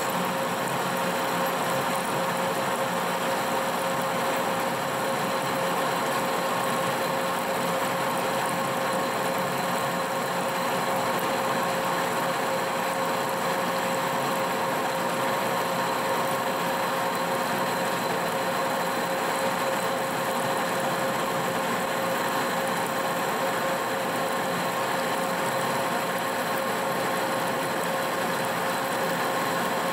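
Monarch engine lathe running steadily under a heavy turning cut on a steel spindle, a constant machine whine over the noise of the cut.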